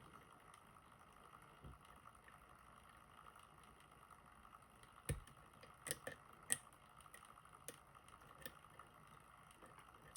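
Near silence broken by a few faint, sharp clicks of curved flag picks working the pins inside a Nagasawa high pin count lock, the strongest about five seconds in.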